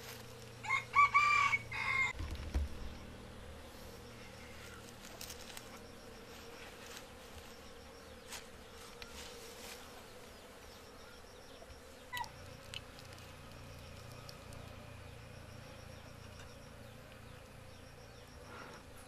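Honeybees buzzing steadily around opened comb. A rooster crows loudly once, about a second in.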